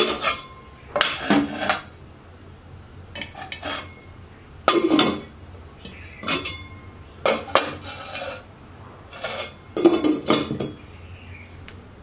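Stainless steel lid being put down and rattled on a metal cooking pot. It makes sharp metal-on-metal clanks and clatters in about eight short bouts, every second or so, each ringing briefly.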